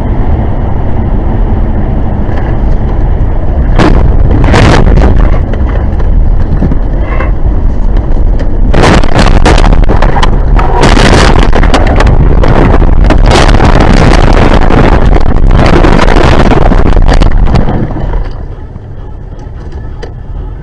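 Loud, overloaded rumble of a vehicle on the move, as picked up by a dashcam microphone, with repeated louder surges through the middle. It drops off sharply near the end.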